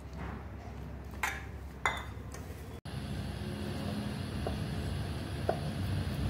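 Two sharp clinks of kitchenware about half a second apart, then a sudden break and a steady low rumble with a couple of faint ticks.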